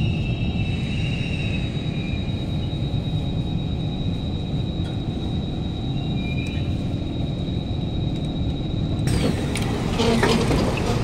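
Inside a Kawasaki Heavy Industries C151 metro car standing at a platform: a steady low rumble with a steady high whine. The whine cuts off about nine seconds in, as the listener steps out onto the platform, and clattery clicks follow.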